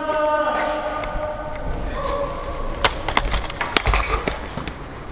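A steady pitched tone stops about half a second in. From about three seconds on comes a fast, irregular run of sharp knocks and clatters on wood.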